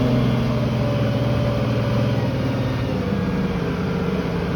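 Tractor engine running steadily while pulling a field cultivator with harrows; its note drops a little about three seconds in.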